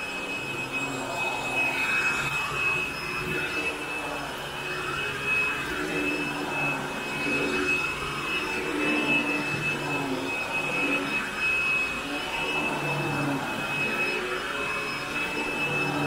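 Upright vacuum cleaner running over carpet: a steady high motor whine, with a lower hum that wavers up and down in pitch as it works.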